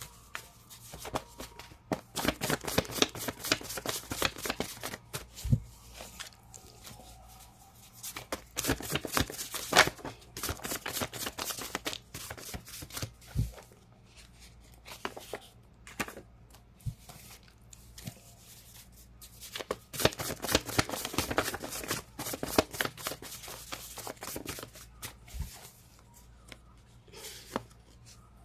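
A deck of tarot cards being shuffled by hand: bouts of rapid, dense card-on-card clicking, with short quieter pauses between them.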